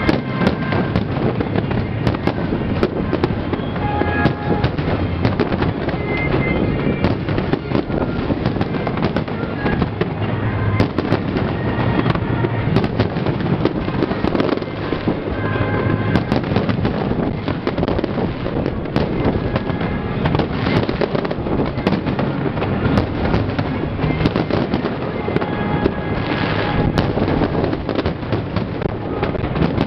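Aerial fireworks bursting in a dense, unbroken barrage of bangs and crackles, with music playing underneath.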